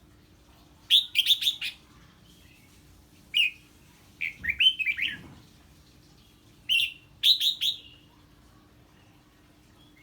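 Red-whiskered bulbul singing short, quick phrases of bright, falling notes, about five phrases a second or two apart, over a faint steady hum.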